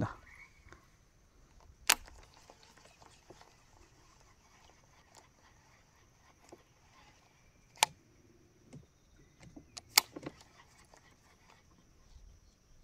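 A few sharp clicks or knocks, about two, eight and ten seconds in, the last the loudest, with fainter ticks between them, over a faint steady high-pitched tone.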